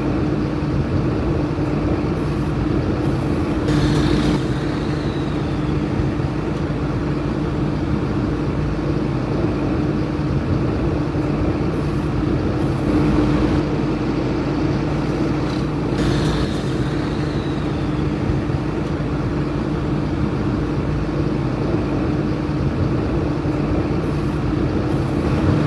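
Truck engine running steadily at one constant pitch. About four and sixteen seconds in come two short, high sounds that drop in pitch.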